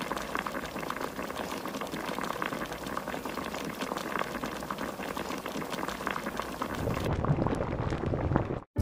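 Water boiling hard in an aluminium pot with homemade noodles in it: a steady bubbling hiss, which turns deeper and lower about seven seconds in.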